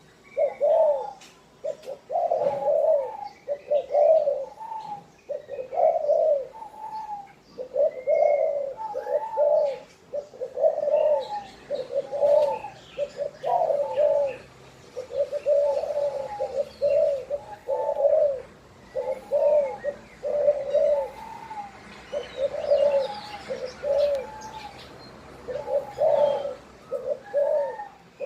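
Spotted dove cooing over and over, a steady series of short coo phrases with brief pauses between them.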